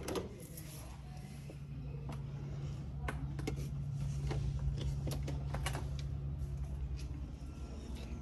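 A steady low hum that comes in about a second in and grows a little louder, with scattered light clicks and taps over it.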